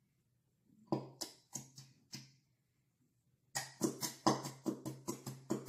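Squeezed Elmer's glitter glue bottle sputtering as thick glue and air are forced out through its nozzle. A few short squelches come about a second in, then from about halfway a quick, regular run of buzzy squirts, about four or five a second.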